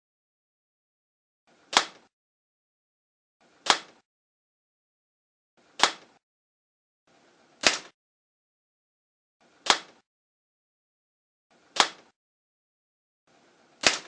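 Rod-drive rubber band hand gun firing repeatedly: seven sharp snaps about two seconds apart, each one a band being released. A faint brief rustle of the mechanism comes just before each snap.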